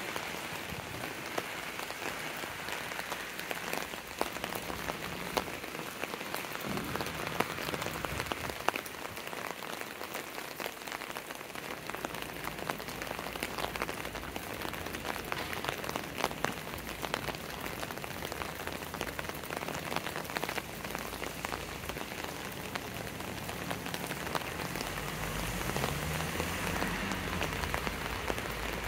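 Steady rain, with many sharp separate drop ticks throughout. Near the end a faint low hum rises and falls.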